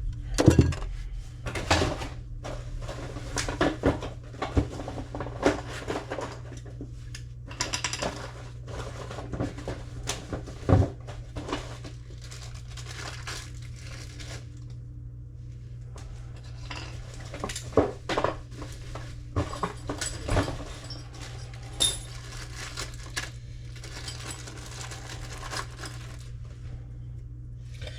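Faucet parts and fittings being handled: scattered metal clinks, knocks and rattles, over a steady low hum.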